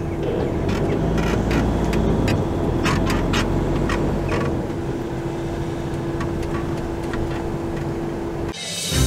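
Cabin sound of a Pössl Roadcar camper van driving slowly: a steady engine and road rumble with a constant hum and scattered light clicks. Near the end it cuts to music.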